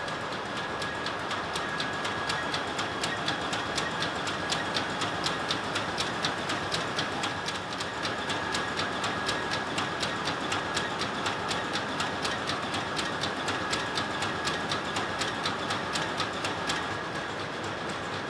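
Ship's two-stroke main diesel engine running, heard in the engine room as a steady mechanical din with a fast, even clicking and a steady high whine. The clicking fades near the end.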